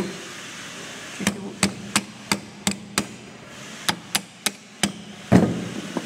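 Light metal taps on a rear drum brake shoe's handbrake lever, about three a second in two runs, then one heavier knock with a short ring near the end: a half-moon retaining clip being driven onto the lever's pivot.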